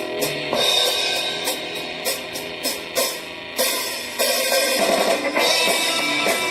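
Rock-style music played back through a small portable Bluetooth speaker: a drum beat with cymbal and hi-hat hits about twice a second over guitar.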